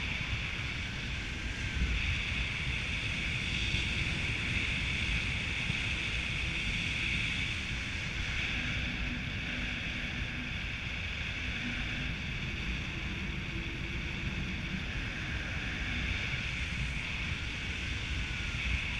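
Steady wind buffeting the microphone in paragliding flight: a continuous low rumble with a higher airy hiss over it.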